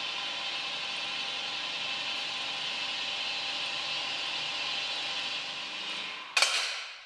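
Totalkare mobile column vehicle lifts lowering a double-decker bus: a steady mechanical whir and hiss with several high tones. A little after six seconds in it ends in a short loud burst of hiss and then dies away.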